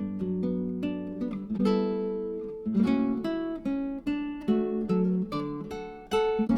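Background music: an acoustic guitar picking and strumming a run of ringing notes.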